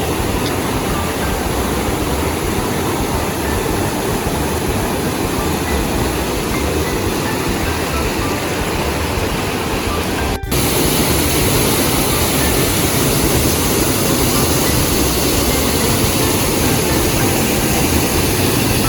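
Rushing water of a creek waterfall: a loud, steady roar that cuts to a second, slightly louder stretch about ten seconds in.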